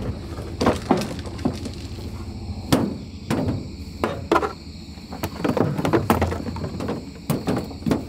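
Irregular knocks and clatter of full-body goose decoys being handled and pulled off a utility trailer, a quick string of sharp clacks and thumps.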